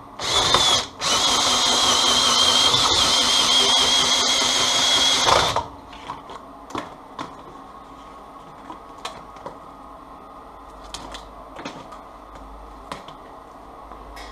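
A cordless drill spins a homemade cable-stripping shaft as an insulated wire is fed through it. It runs for about five seconds with a high, slightly wavering whine, stopping briefly just under a second in. Afterwards come faint rustles and light clicks as the slit insulation is peeled off the copper by hand.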